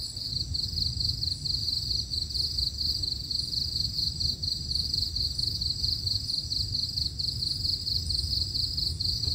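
Crickets chirping in a steady, high pulsing chorus.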